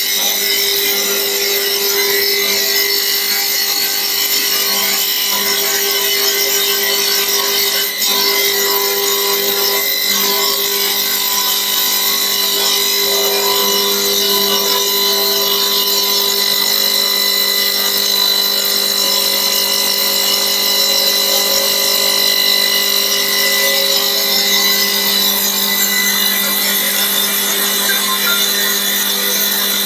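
CNC wood turning lathe cutting a spinning wooden workpiece: continuous cutting hiss with a steady high whine, briefly dipping about eight seconds in.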